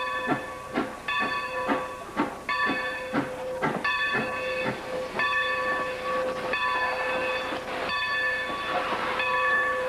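Steam locomotive No. 90 moving slowly into a station, its bell ringing about once a second over the hiss and chuff of steam and some knocking from the running gear, which is heaviest in the first few seconds.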